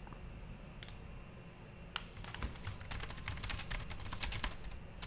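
Typing on a computer keyboard: two single keystrokes in the first two seconds, then rapid, continuous typing.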